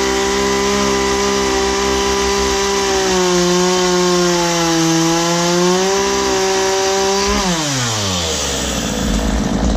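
Ryobi RY3716 two-stroke gas chainsaw running at full throttle. Its pitch sags for a few seconds in the middle as it bites into the wood. Near the end the throttle is let off and the engine winds down to idle.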